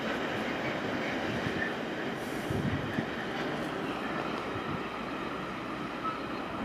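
Freight train wagons rolling away along the track: a steady rolling rail noise that eases slightly as the train recedes.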